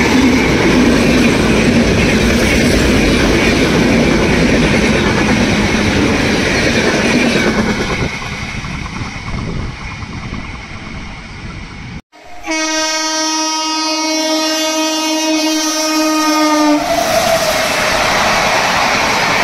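A train running past, its loud, even noise easing off after about eight seconds. After a sudden cut, a locomotive horn sounds one long steady blast of about four seconds, and then train running noise returns.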